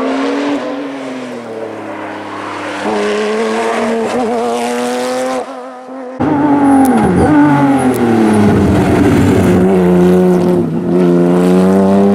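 Rally car engine revving hard through the gears, its pitch climbing and dropping at each shift. About six seconds in a louder engine cuts in, its pitch falling and then climbing again.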